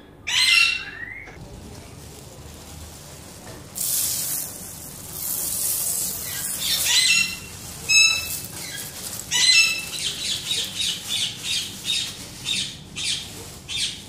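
Parrots squawking in short harsh calls, loudest about half a second in and again around 8 and 9.5 seconds, then a run of quick repeated calls near the end. Under them comes the hiss and patter of small seeds poured from a plastic bag into a plastic tub.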